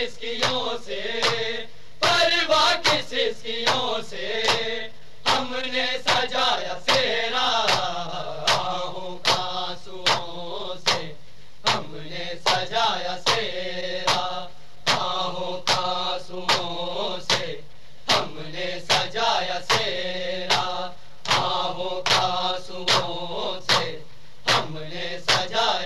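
Men chanting an Urdu noha, a Shia mourning elegy, in a steady melodic line. Regular sharp beats of the kind made by matam chest-beating keep time under the voices.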